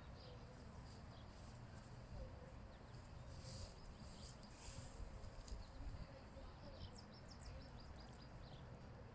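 Faint outdoor ambience: birds chirping in the distance in short high calls, a cluster of quick chirps near the end, over a low steady rumble.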